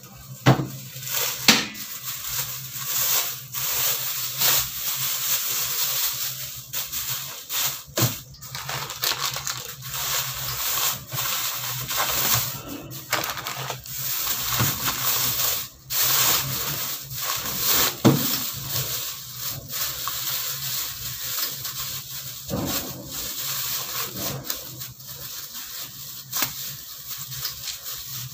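Thin plastic bag rustling and crinkling as it is pulled over a bundle and knotted, with many sharp crackles.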